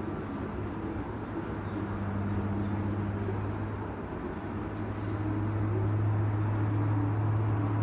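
Stunt airplane's engine droning steadily overhead, a low even hum that grows slightly louder in the last few seconds.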